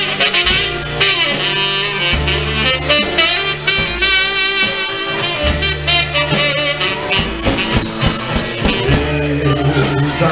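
A live band playing: a saxophone carries the melody over a drum kit keeping a steady cymbal beat, with acoustic guitar and low bass notes underneath.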